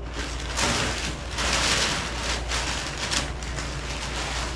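Crinkly rustling in irregular surges as scraps of leftover garage-door insulation are handled and pulled out, over a steady low hum.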